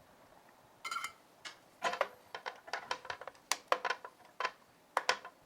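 Small metal hand tools clicking and tapping on a workbench during circuit-board soldering work: an irregular run of sharp clicks, some with a short ring, starting about a second in.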